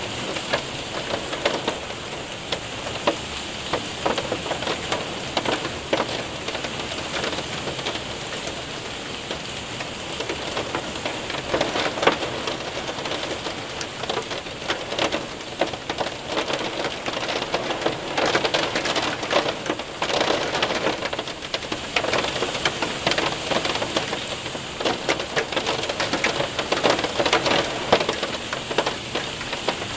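Hail and heavy rain hitting a window and roof: a dense, steady patter with many sharp individual ticks of hailstones striking.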